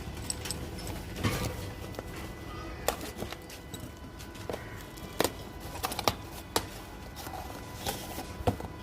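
Irregular clicks and taps of a new phone box and its packaging being handled and opened, over a faint steady hum.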